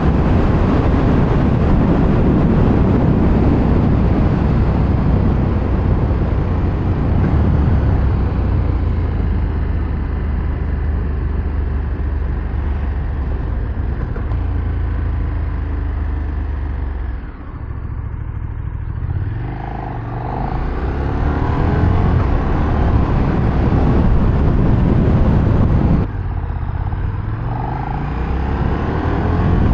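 KTM 1390 Super Duke R's V-twin engine running at speed with wind rush. About halfway through the throttle closes and the revs fall, then the engine pulls again with rising revs. Near the end the revs cut off suddenly and build back up.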